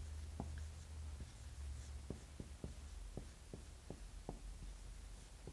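Marker writing on a whiteboard: a string of faint, irregular ticks and strokes of the pen tip, over a low steady hum.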